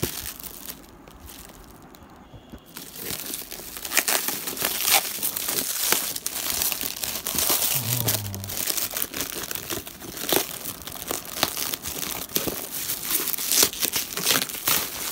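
Clear plastic wrapping crinkling and tearing as hands pull it off a cardboard box, a dense crackly rustle that picks up about three seconds in.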